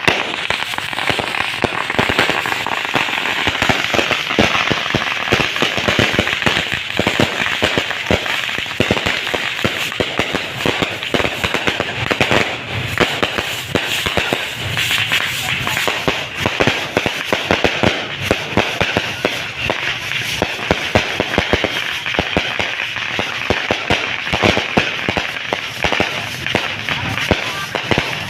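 Firecrackers and fireworks going off in a dense, unbroken crackle of many small bangs a second.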